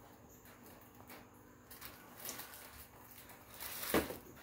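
Faint rustling and handling of prop assembly parts, with a sharper knock or rustle about four seconds in.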